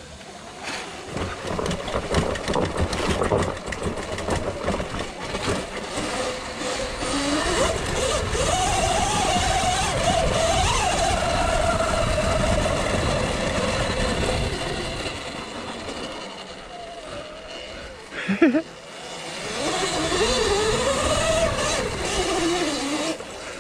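Sur-Ron electric dirt bike riding: the motor and drive whine rises and falls in pitch with speed, climbing and easing twice, over a steady rushing noise. A brief loud sound cuts in about eighteen seconds in.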